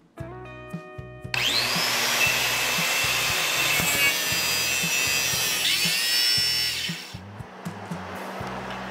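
Makita compact circular saw starting about a second in, its whine rising as it spins up, then cutting across a small wooden block for several seconds before stopping with about two seconds left. Background music plays underneath.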